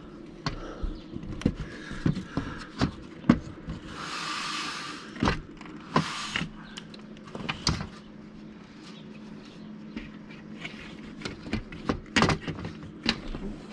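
Scattered knocks, clicks and light taps of an RV window's glass panel and frame being handled and pressed onto its pins, with a short scraping hiss about four seconds in and another about six seconds in.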